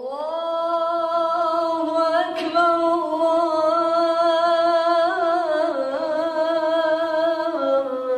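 Outro music: a voice holding long, wavering notes that step down in pitch about two-thirds of the way through and again near the end.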